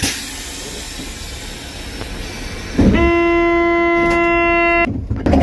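A train horn sounds one loud steady note for about two seconds, then cuts off sharply. Before it, the steady rumble and hiss of a train.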